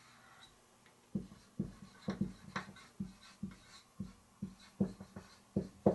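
Marker pen writing on a whiteboard: a quick, uneven series of short taps and strokes as letters are drawn, starting about a second in.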